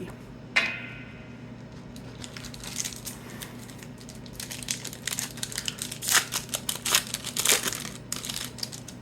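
Foil wrapper of a 1991-92 Upper Deck basketball card pack being torn open and crinkled by hand. There is a sharp crackle about half a second in, then a run of crinkling from about four to eight seconds in.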